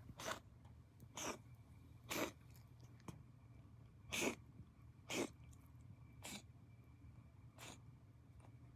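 Munchkin cat reverse sneezing: a run of about eight short, sharp snorts, roughly one a second.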